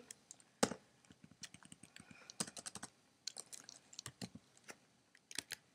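Computer keyboard being typed on: quiet keystrokes in irregular runs, with a few sharper clicks standing out.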